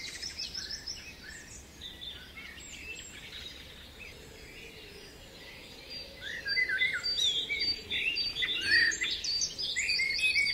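Several songbirds chirping and singing together in a busy chorus of short rising and falling notes, thinning out in the middle and growing busier and louder from about six seconds in.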